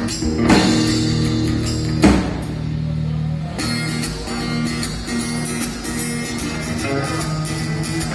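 Guitar-led music with a loud strummed chord about half a second in and another about two seconds in, each left ringing.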